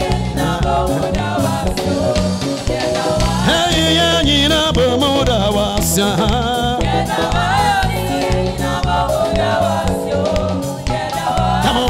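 Gospel praise music: singing voices over instrumental backing with a steady beat.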